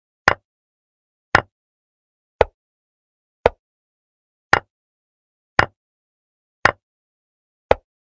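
Chess software's piece-move sound effect: eight short sharp clicks, evenly spaced about a second apart, one for each move as the game is played out.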